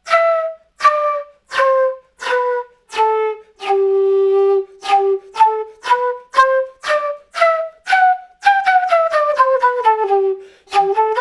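Quena played note by note down the scale to its low G, which is held about four seconds in, then back up. Each note starts with a breathy, windy attack from blowing harder with the lips opened a little: the 'dirty attack' effect. Near the end comes a quick connected run down to the low G and back up.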